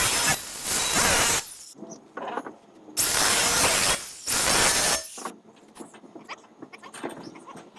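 Welding in short bursts of hissing, crackling noise, each about a second long: two near the start and two more about three to five seconds in, with faint ticks between.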